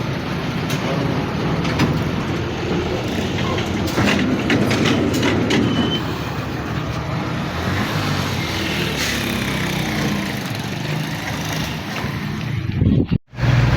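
Steady running of a vehicle engine mixed with scattered knocks and clatter. About 13 seconds in, it all cuts off abruptly.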